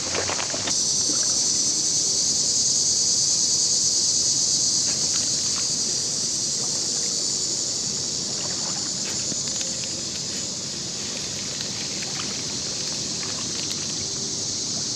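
Steady outdoor ambience: a constant high-pitched hiss that gets louder just under a second in and eases off a little in the second half, with a few faint clicks.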